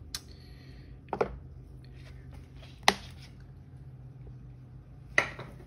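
A few separate light clicks and taps as the oil drain bolt is handled over a plastic drain pan, one of them the clink of the bolt's washer dropping into the pan, over a low steady hum.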